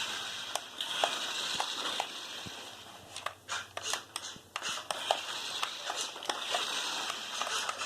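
Small electric motors of a toy RC stunt car whirring in two long stretches, with a dip in the middle, with scattered clicks and knocks from the toy's plastic parts. The toy is running.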